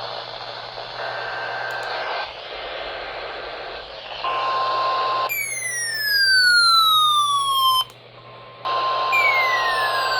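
Radio receiver hiss and static with steady tones over it: a high tone about a second in, then a steady tone near 1 kHz from about four seconds in. From about five seconds on, whistles sweep steadily downward in pitch; they cut out briefly near eight seconds and then start again.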